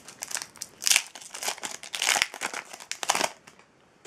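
Foil wrapper of a Yu-Gi-Oh booster pack crinkling in the hands as the pack is opened, in a run of crackly bursts that stops about three and a half seconds in.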